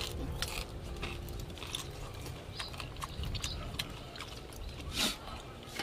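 Close-up eating sounds: chewing and lip-smacking with scattered short wet clicks, and a louder mouth noise about five seconds in, over a low rumble.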